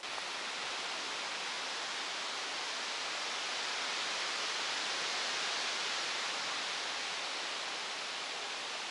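A steady, even hiss of outdoor forest ambience with no distinct events.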